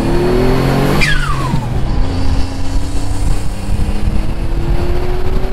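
Built twin-turbo Mitsubishi 3000GT VR4 V6 accelerating hard through the gears. About a second in the revs drop for an upshift and a whistle falls steeply in pitch as the throttle lifts, from the turbos and blow-off valve. The engine then pulls again, rising steadily in the next gear.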